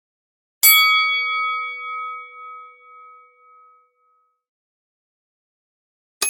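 A metal bell struck once, ringing out with a wavering ring that fades away over about three seconds. Right at the end a different, higher-pitched bell is struck once and rings briefly.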